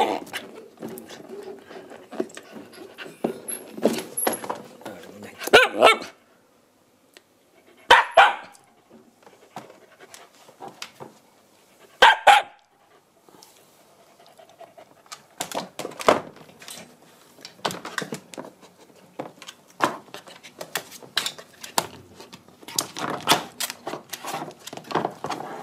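White Shiba Inu puppy giving short barks, loudest three times at intervals of a few seconds, with panting and a scatter of clicks and knocks as it moves about the wire pen.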